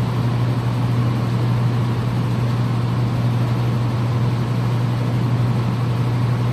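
Steady low mechanical hum with an even hiss over it, unchanging in pitch and level: the drone of an underground parking garage's machinery.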